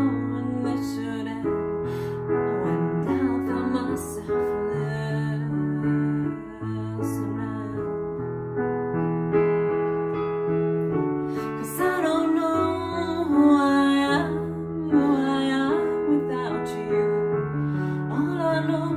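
A woman singing to her own accompaniment on an electronic keyboard with a piano sound, playing held chords that change every second or so; her voice comes in over them in phrases.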